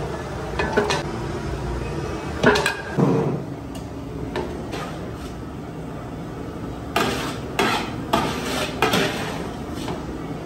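Metal dish scooping cooked rice out of a large aluminium cooking pot, scraping and knocking against the pot in irregular clanks, with a busier run of knocks in the last third.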